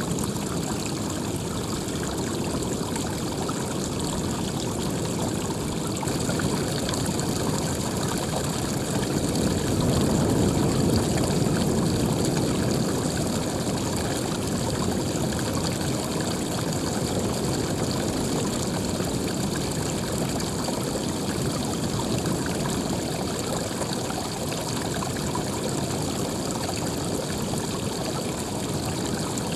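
Running water, a continuous stream or small waterfall rushing and splashing, swelling a little about ten seconds in.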